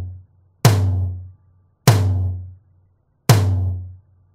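Tom 1 of a drum kit struck three times, about once every second and a bit, each hit ringing briefly and dying away; its sound sits from about 90 Hz up.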